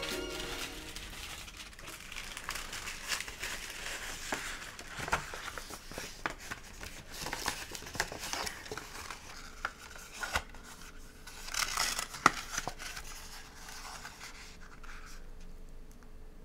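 Dry bamboo sheaths crackling and rustling as they are folded by hand, with irregular crisp snaps and one sharper crack about three-quarters of the way through.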